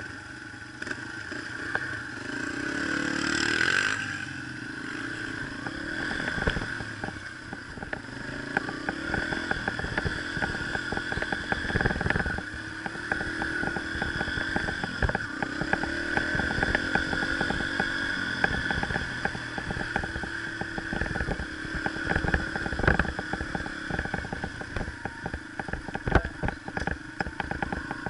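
Yamaha TT-R125 dirt bike's single-cylinder four-stroke engine running on a rough trail, its pitch rising and falling with the throttle, with a rev climbing about three seconds in. Short clattering knocks from the bike jolting over the ground come through the engine sound.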